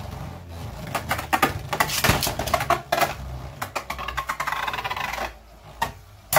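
Two Beyblade Burst spinning tops whirring and clashing in a plastic stadium: a rapid rattle of clacks and knocks that eases off about five seconds in, followed by one sharp knock at the end.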